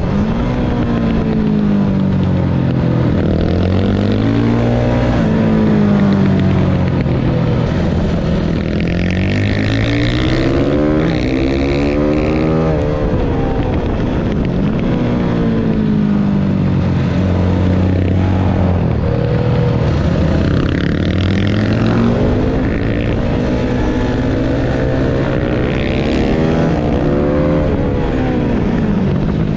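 Supermoto motorcycle engine revving hard and easing off over and over, its pitch climbing under acceleration and falling away under braking and downshifts. The longest climb runs from about eight seconds in to about thirteen, then drops off sharply.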